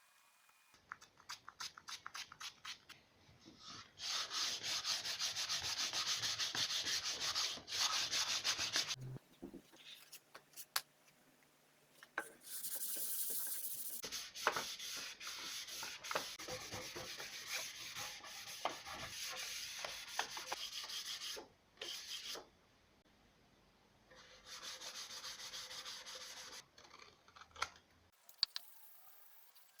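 Hand sanding of wood: abrasive paper rubbed back and forth in quick strokes, in three long spells with short pauses between.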